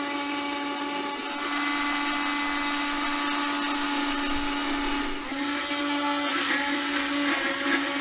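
Electric stick blender running steadily in a tall glass jug, emulsifying egg, mustard, lemon juice and oil into mayonnaise as it is drawn slowly upward. Its motor hum dips briefly about five seconds in, and the blending then sounds rougher as the mixture thickens.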